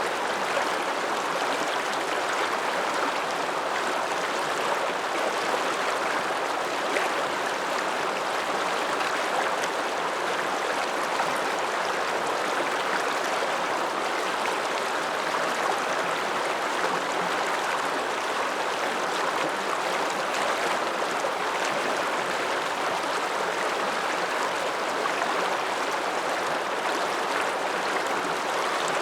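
The Ramsauer Ache, an Alpine mountain river, rushing steadily with an even, unbroken water noise.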